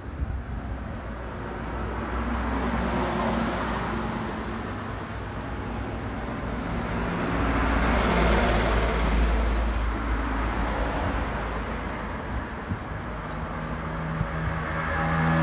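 Road traffic: motor vehicles passing over a low engine hum, the noise swelling about three seconds in and again, loudest, about eight seconds in.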